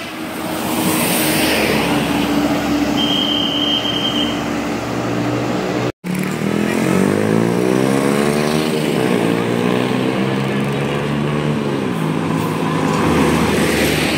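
Bus engines running close by, with a brief high steady beep a few seconds in. After a cut, an engine's pitch climbs and then falls as a vehicle accelerates and passes.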